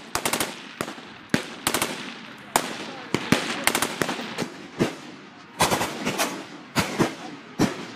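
Gunfire from several rifles: single shots and quick clusters of two or three shots at irregular intervals, each trailing off briefly.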